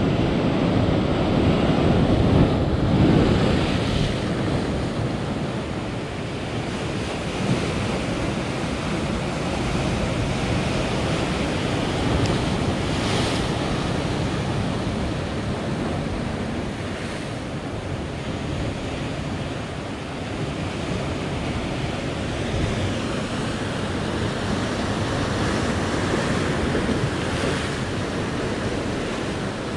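Ocean swell breaking and washing over a rock shelf in a steady wash of surf, a little louder a few seconds in. Wind buffets the microphone throughout.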